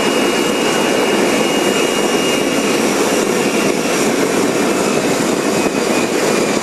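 Homebuilt kerosene-fuelled backyard jet engine running self-sustained at full throttle, a loud steady rushing noise. A thin high whine rides on top and weakens about three to four seconds in.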